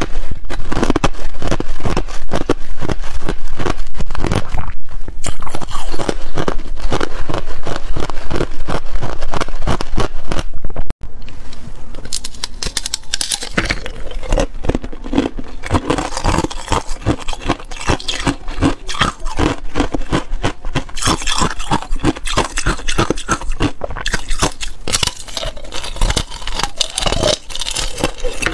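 Ice being bitten and crunched close to a lapel microphone, a dense run of sharp cracks and crunches. About eleven seconds in it turns quieter, with a crackling run of bites into a thin sheet of clear ice moulded in an ice-cube tray.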